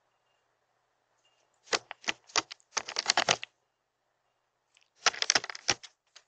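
Herring gull's bill pecking at nuts on a hard tabletop: a quick run of sharp taps about two seconds in, then another cluster about five seconds in.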